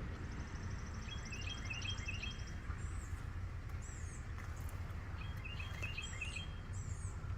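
Birds chirping and calling, with a fast high trill in the first couple of seconds and short repeated chirps in two clusters, over a steady low rumble.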